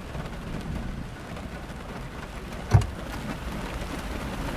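Steady rain on a car, heard from inside the cabin, with a single sharp clunk a little past halfway through.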